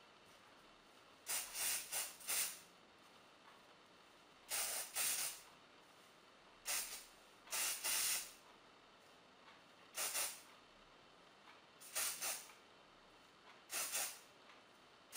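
Aerosol can of hairspray sprayed onto curled hair in short hissing bursts, in groups of one to four every couple of seconds, with the can held well away from the hair.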